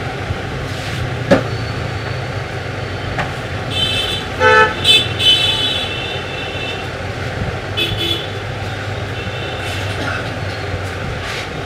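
Street traffic: several vehicle horns toot, the loudest in the middle, over a steady low traffic rumble. There is a single sharp click about a second in.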